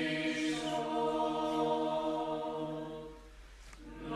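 Background choral chant: a choir holding long sustained chords that fade away about three seconds in, with a new phrase beginning just before the end.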